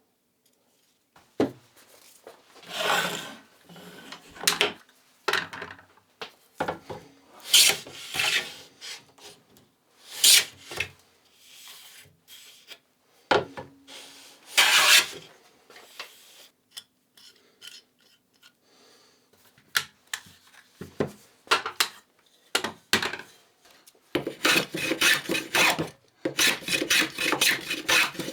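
Wood being worked by hand with an abrasive tool, like a rasp or file: single scraping strokes a second or two apart, then a fast run of short back-and-forth strokes near the end.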